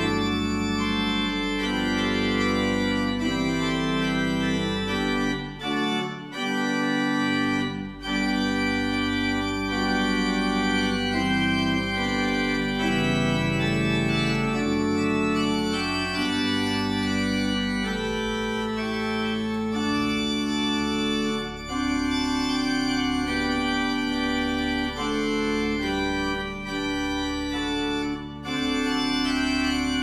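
Pipe organ playing slow, sustained chords over a low pedal bass line, with short breaks between phrases.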